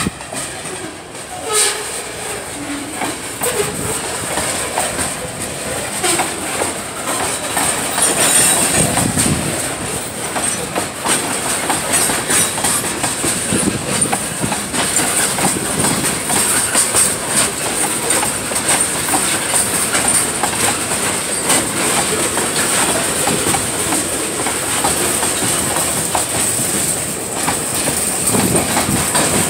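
Freight cars (covered hoppers and tank cars) rolling slowly past at close range, their wheels clicking and knocking over the rail joints, with a steady thin high squeal from the wheels running throughout.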